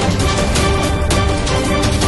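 Background music: held instrumental notes over a heavy bass, with frequent sharp percussive hits.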